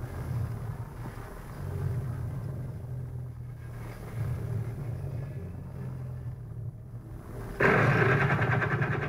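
A low, steady engine-like rumble, then a much louder rattling, engine-like sound that starts suddenly about three-quarters of the way through.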